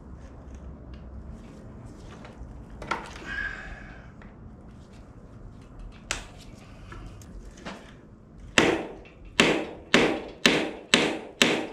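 Hammer blows on a screwdriver or punch held against a cast-iron Chevy 283 V8 block. A clank and a single strike come first, then a fast run of six hard blows about half a second apart in the last three seconds.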